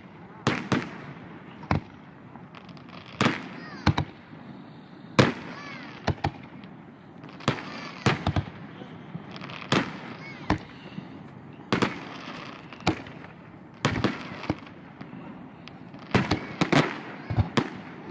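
Fireworks going off: about twenty sharp bangs at uneven intervals, roughly one a second, some in quick pairs or triplets.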